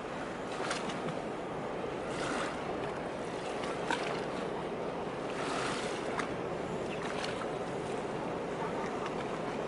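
Harbour water sloshing and splashing in small waves, a brief splash about every one and a half seconds over a steady rush of water and wind.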